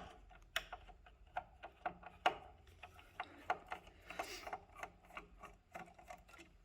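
Irregular small clicks and taps of a screwdriver working the Phillips wood screw out of the electric unicycle's cable box, with a brief rubbing scrape about four seconds in.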